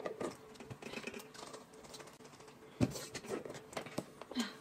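Faint clicks and small knocks of tableware being handled during a meal: chopsticks in a metal pot and a glass jar handled on the table, with a sharper knock about three seconds in.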